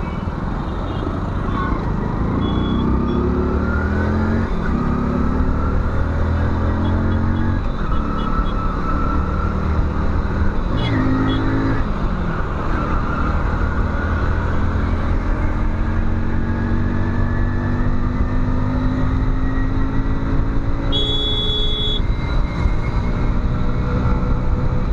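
Hero Splendor's single-cylinder four-stroke engine running under the rider while it moves through traffic. Its pitch climbs as it accelerates and drops back at each gear change, several times over. A brief high-pitched beep sounds about 21 seconds in.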